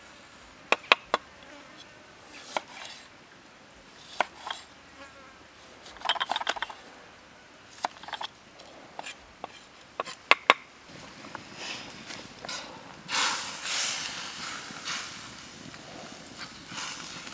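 A chef's knife chops limes on a wooden chopping block, giving sharp knocks singly and in quick clusters. After about ten seconds this gives way to a steady hiss of water boiling in a steel wok over a wood fire, swelling for a couple of seconds.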